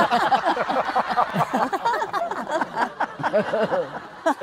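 Several people laughing and chattering over one another, with quick repeated voice bursts and no single clear speaker.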